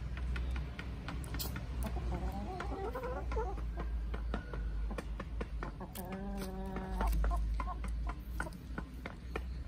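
Domestic chickens clucking while they forage, with a longer, drawn-out hen call about six seconds in. Many short clicks of pecking and scratching in dirt and dry leaves run through it, over a low steady rumble.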